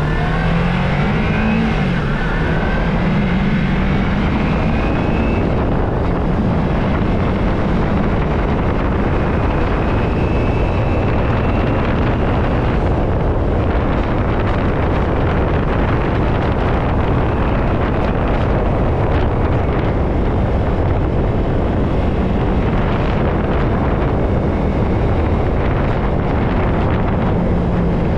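Motorcycle being ridden at road speed: heavy wind noise on the microphone over a steady engine note. The engine pitch climbs in the first few seconds as the bike accelerates.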